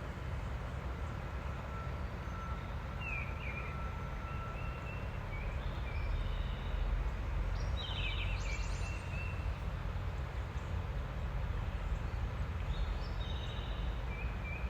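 Outdoor ambience: a steady low rumble, with birds calling a few times, loudest about eight seconds in.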